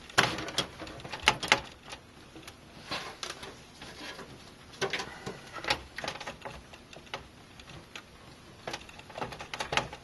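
Irregular light clicks and knocks as an ASUS Rampage V Extreme motherboard is shifted and pressed against the case's standoffs and rear I/O panel while it is being seated. The clicks come in short clusters, with a busier run near the end.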